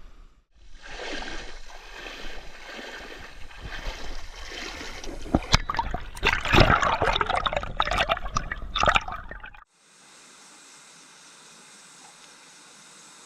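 Stream water rushing and splashing, with sharp splashes in the second half and a low rumble of wind on the microphone; it cuts off suddenly near the end into a faint, steady hiss of flowing water.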